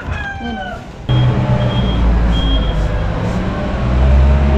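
A heavy construction vehicle's engine runs at a steady idle from about a second in, with two short high beeps over it. Before that, a rooster's crow trails off.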